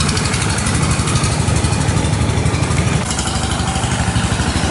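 Longtail boat's engine running steadily, with a loud, rapid, even throbbing pulse.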